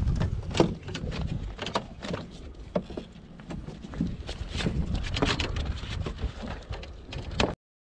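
Wind buffeting the microphone as a low, uneven rumble, with scattered clicks and knocks from handling fishing gear in a kayak. The sound cuts off abruptly near the end.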